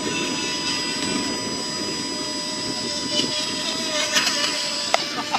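FT009 RC racing boat's brushless electric motor running with a steady whine over the rush of water against the hull, with a few sharp clicks near the end.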